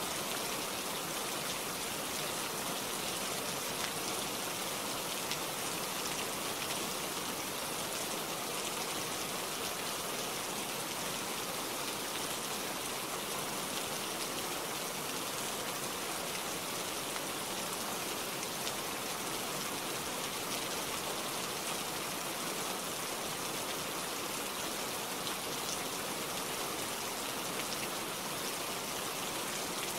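Steady rain falling, an even hiss of drops with faint scattered drop ticks, unchanging throughout.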